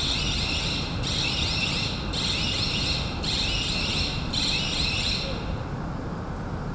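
A warning alarm in a train washing bay sounds a warbling high tone in five pulses, about one a second, and stops about five seconds in. Under it runs a steady low rumble as a bullet train stands or approaches at the bay's entrance.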